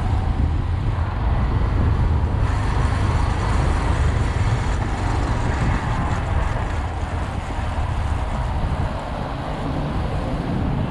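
Steady rumble and wind rush from a moving motorcycle, recorded on a GoPro Hero 7 mounted on the bike: engine and road noise under wind buffeting the camera's microphone.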